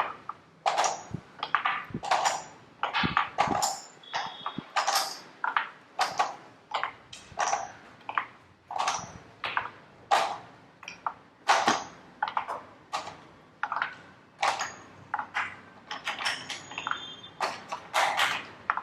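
Pegs being picked up and dropped into the holes of a peg board one after another, a sharp click or tap with each, about two to three a second at a quick, even working pace.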